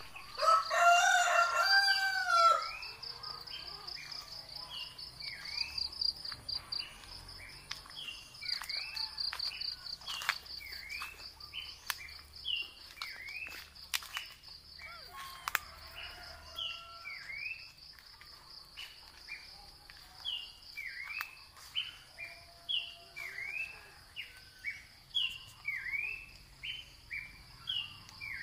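A rooster crows once, a two-second call that rises and falls, starting about half a second in. After it, short chirps repeat about once a second over a steady, high insect trill.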